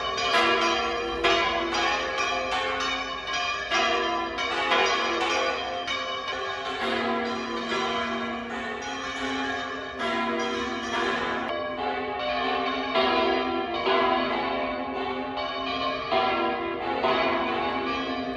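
Church bells pealing: a quick run of strikes on several bells of different pitch, their tones ringing on into one another.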